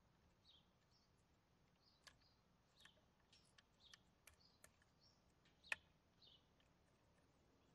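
Near silence, with a few small clicks from a First Gear die-cast model garbage truck being handled, one sharper click just before the six-second mark, and faint bird chirps throughout.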